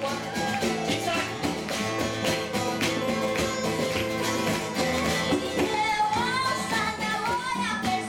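Live band music: acoustic guitars strummed in a steady rhythm under singing into a microphone.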